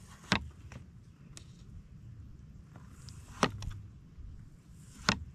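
A knife chopping fresh coriander leaves: three sharp cuts, the first about a third of a second in, then two more about three seconds and a second and a half apart.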